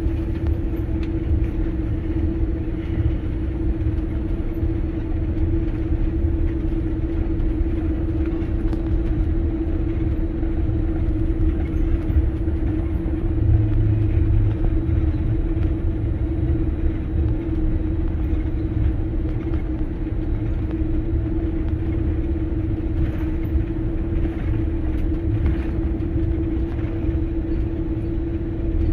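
Airliner cabin noise while taxiing: a steady low rumble from the engines and rolling gear, with a constant hum running through it.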